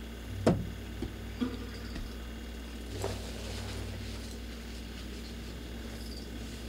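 A few knocks over a steady low electrical hum: a sharp thump about half a second in, two lighter knocks within the next second, and a softer one about three seconds in.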